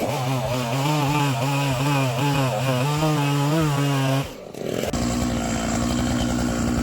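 Chainsaw running under load, its engine pitch wavering up and down as it cuts into wood. About four seconds in the sound breaks off briefly, then a chainsaw runs again at a steady, higher pitch.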